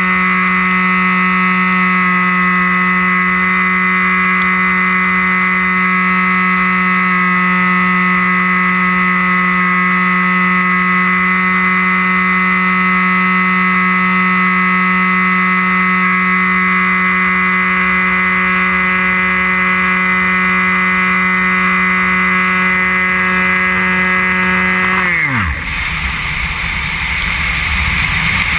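Electric brushless outrunner motor and 7x5 propeller of a Dynam Hawk Sky RC plane, heard from a camera on the plane, running at a steady high-pitched whine. About 25 seconds in, the motor spins down quickly and rushing wind takes over.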